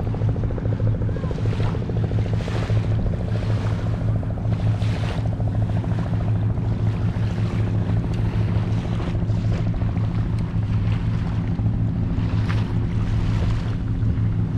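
An engine running steadily at one low pitch, with wind noise on the microphone and water noise.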